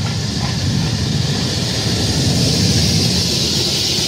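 Steam locomotive and its coaches rolling slowly along the platform and past close by, a low rumble of wheels on the rails with a hiss that grows louder as the engine draws level.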